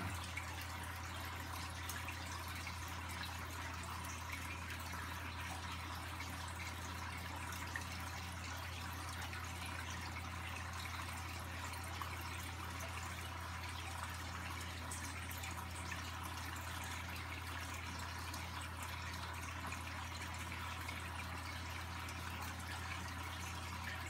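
Aquarium running: water trickling and dripping over a steady low hum from the tank's equipment.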